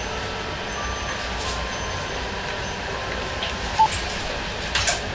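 Steady background rumble and hiss of the shop, with a spoon clinking once against the ceramic bowl about two thirds of the way through and some brief scraping near the end as rice is stirred into the ramen.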